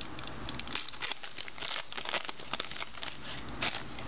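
Trading cards being handled and flipped through by hand: a quick run of sharp rustles and flicks of card stock.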